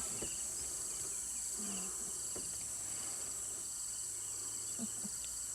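Insect chorus in the bush: a steady high-pitched shrill with a faster pulsing trill beneath it.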